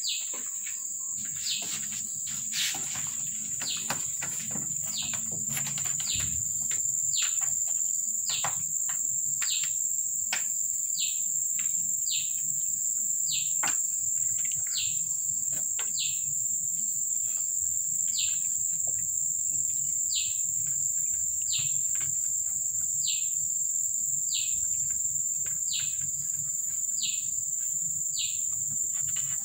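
A steady, high-pitched insect drone, with a bird repeating a short falling note about once a second.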